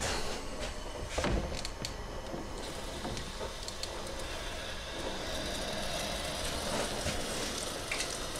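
Cooling water turned on at the tap for a still's Liebig condenser, running steadily through the hoses and out of the drain line into the sink, with a couple of knocks from handling the valve near the start. The hiss of the flow grows about halfway through as more water comes through.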